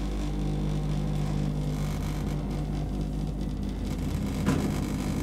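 Schindler hydraulic elevator running: a steady low hum from its hydraulic drive as the car travels, with one short click about four and a half seconds in.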